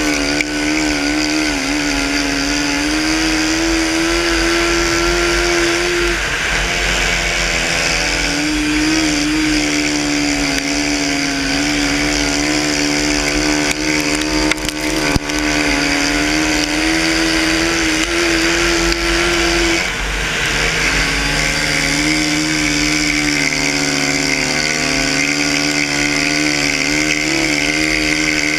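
Yamaha racing quad's engine held at high revs, heard close from the machine itself; its pitch drops briefly about six seconds in and again near twenty seconds, then climbs back up.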